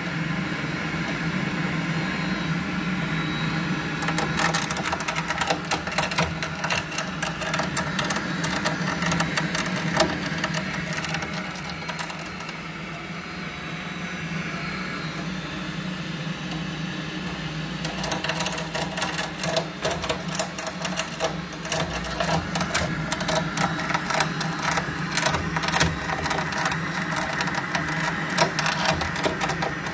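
Buderus gas condensing boiler running with a steady hum and a fast mechanical rattling that comes in two long stretches, easing off for a few seconds in the middle. The rattle is the boiler fault being shown.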